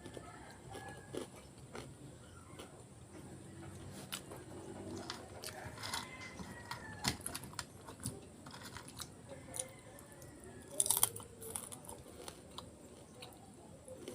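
A person chewing and biting crunchy dried fish with rice, close to the microphone: irregular crisp crunches and mouth sounds, with a louder cluster of crunching about eleven seconds in.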